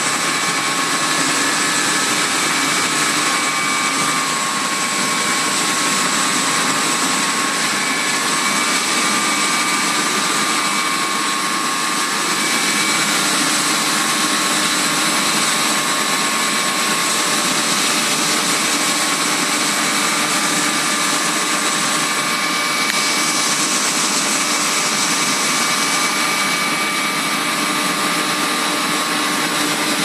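Steady drone of electric-motor-driven centrifugal pumps running, a constant whine over an even rushing hiss.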